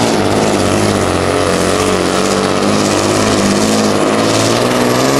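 Volvo FH pulling truck's diesel engine running under heavy load as it drags the weight-transfer sled: a steady, loud, deep drone that wavers slightly in pitch, with a thin high whistle on top.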